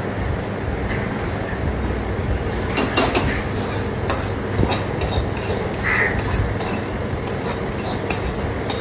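A long steel slotted ladle scraping and tapping against a metal kadai to clear out roasted semolina, with repeated sharp scrapes and knocks from about three seconds in. A steady low rumble runs underneath.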